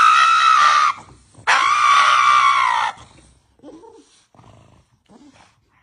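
Pug screaming while its nails are clipped: two long, high, held cries, the second starting about a second and a half in.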